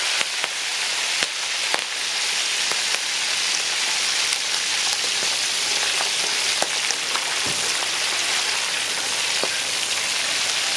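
Whole shrimp deep-frying in a wok of hot oil: a steady, dense sizzle with scattered sharp pops and crackles.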